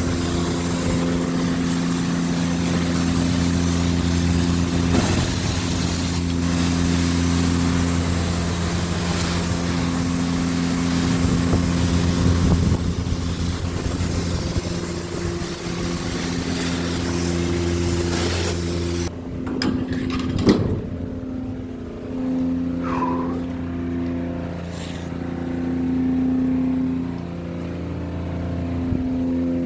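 Self-serve car wash pressure washer: a steady pump hum under a loud hiss of spray, which cuts off about two-thirds of the way in, leaving the hum running more quietly with a few short knocks.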